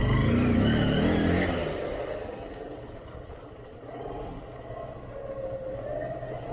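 Motorcycle engine revving. It is loudest and rising in pitch in the first two seconds, drops back, then picks up again near the end.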